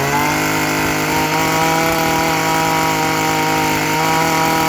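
Stihl FS26 brush cutter's 26 cc engine revved to full throttle, reaching top speed just as it begins and held there steadily, running strong and even.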